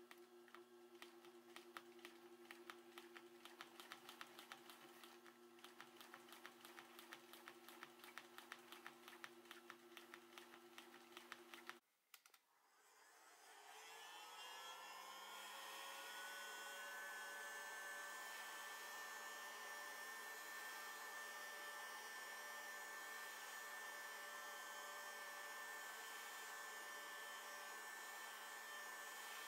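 Industrial sewing machine stitching vinyl over foam: quick, even needle ticks over a steady low motor hum, stopping about twelve seconds in. Then a handheld hot-air gun starts up, its fan whine rising over a few seconds and then holding steady with a rushing air sound.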